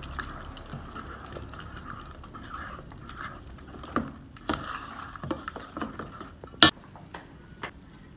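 Metal spoon stirring wet flour batter in a stainless steel bowl, scraping and clicking against the sides, with one sharp, loud click about two-thirds of the way through.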